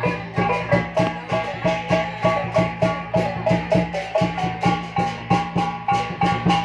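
Music with a fast, even beat of struck percussion, about three strokes a second, carrying a repeating melody of pitched, marimba-like notes over a steady low tone.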